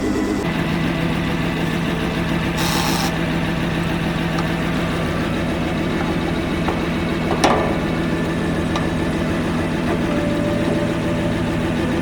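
A heavy engine idling steadily, with a brief hiss about three seconds in and a single sharp knock a little past halfway.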